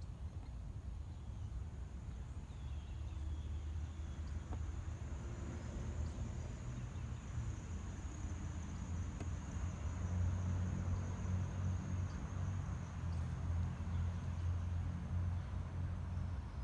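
A mass of honeybees from a freshly dumped package buzzing as a low steady hum that swells louder about ten seconds in, with a faint high steady tone above it.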